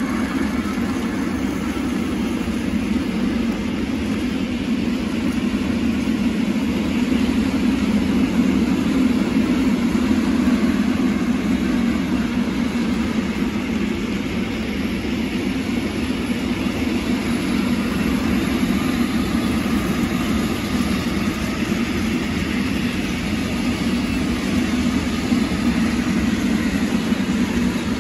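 Container freight train's flat wagons rolling past on the rails, a steady rumble.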